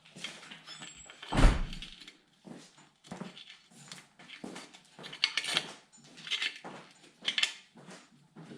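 Hand tools working on a bare cast-iron Chevy 454 engine block while frost plugs are driven and pried out: one heavy thud about a second and a half in, then several short metallic scrapes and clinks.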